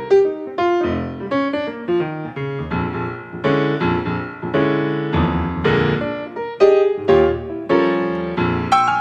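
Background piano music: a melody of separate struck notes over lower chords, at a steady moderate pace.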